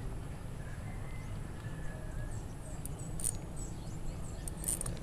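Outdoor ambience: small birds chirping faintly over a low steady rumble, with two sharp high chirps about three and four and a half seconds in.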